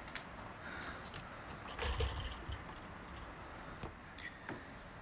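Faint handling noises from a soldering iron and hands working on a laptop motherboard: a few light clicks and taps, with a soft bump about two seconds in, over quiet room tone.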